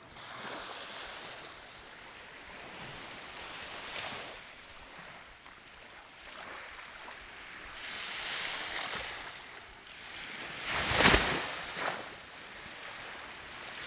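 Small waves washing onto a sandy beach, the surf noise swelling and easing, with a brief louder rush about eleven seconds in.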